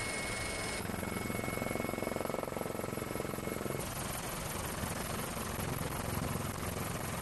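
Helicopter in flight: steady rotor and turbine noise that changes abruptly about a second in and again about four seconds in.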